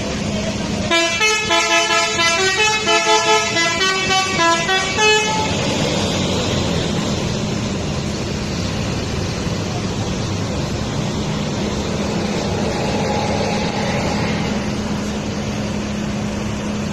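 Telolet musical horn on a Po Haryanto intercity bus playing a quick melody of stepped notes for about four seconds, over the steady hum of the bus engine. After the tune, a steady rushing engine and traffic noise continues.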